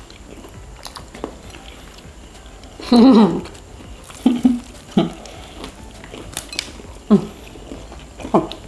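Breaded fried calamari rings being bitten and chewed, with faint crunchy clicks. Several short vocal murmurs break in, the loudest about three seconds in and falling in pitch.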